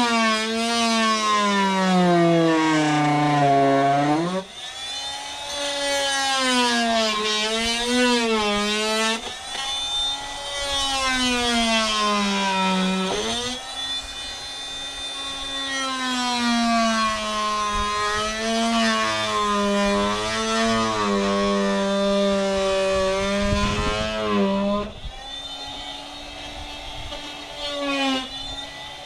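Corded electric power tool cutting into a wooden deck joist, its motor whine sagging in pitch each time it is pressed into the wood and climbing back when the load eases. It stops briefly about four seconds in and again near the end.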